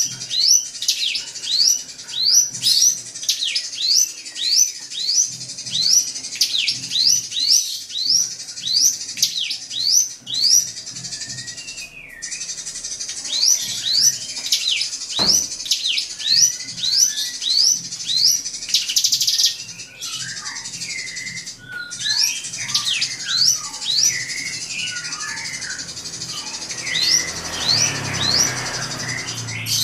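Drongo singing: a fast series of sharp whistled notes, about two a second, then more varied chattering phrases from a little past the middle, over a steady high hiss.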